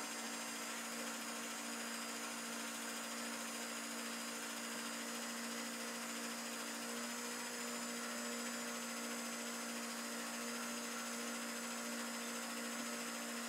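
Home-movie projector running: a steady hum from its motor and cooling fan over an even hiss.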